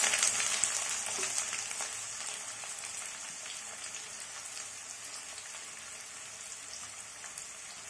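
Chopped onions sizzling in hot oil in a kadai, just tipped in to fry for beresta (crisp fried onions). The sizzle is loudest at first and slowly dies down to a steadier, quieter frying.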